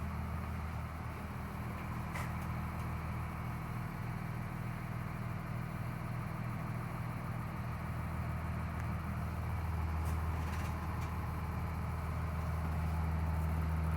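Cummins ISC diesel engine of a 2001 Blue Bird All American school bus idling steadily, with its high idle switched on.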